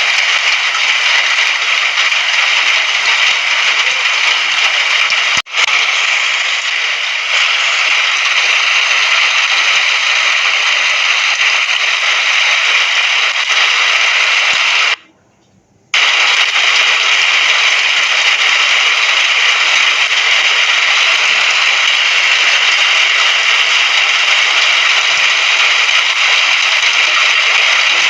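Rain sound effect: a steady, dense hiss of rain. It dips for an instant about five seconds in and drops out for about a second near the middle before starting again.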